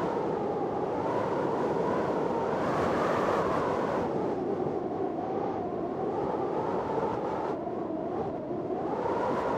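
Storm wind blowing hard: a steady noisy rush with a whistling tone in it that wavers slowly up and down in pitch. The high hiss thins out briefly a little after seven seconds in.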